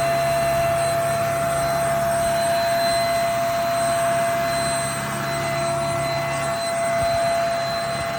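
JPHYLL handheld mattress vacuum (UV-C bed vacuum) running steadily at full speed, its motor giving a high steady whine over the rush of air. A low hum underneath drops away about six and a half seconds in.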